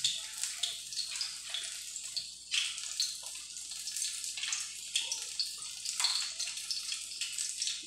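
Battered banana fritters (maruya) frying in hot oil in a wok: a steady sizzle with irregular crackles and pops.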